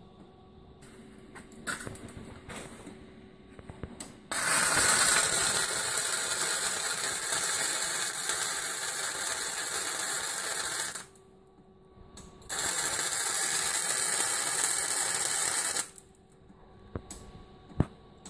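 MIG welder arc running in two beads, first for about six and a half seconds and then, after a short pause, for about three and a half, a steady hiss, welding up a crack in a 1927 Ford Model T's steel frame. A sharp click near the end.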